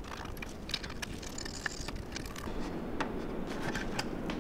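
Gloved hands handling a Macintosh TV logic board on a metal worktop: scattered small clicks, taps and light scrapes over a steady low room hum.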